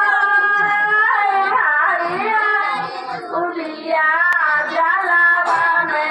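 Women's voices singing a traditional Bihari wedding folk song about a daughter (beti ke geet), in drawn-out sung phrases.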